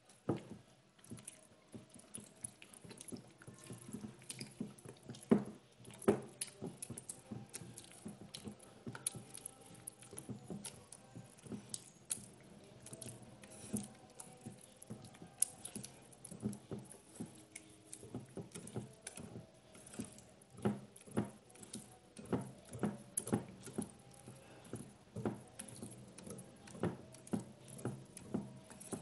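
Metal wire whisk beating thick batter in a glass bowl: irregular clinks of the wires against the glass, several a second, with the soft slap of the batter.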